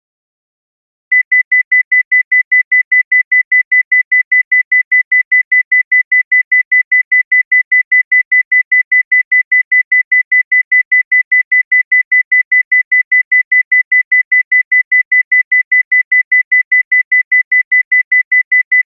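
Cardiac monitor sound effect: a rapid, even run of high single-tone beeps, about five a second, starting about a second in.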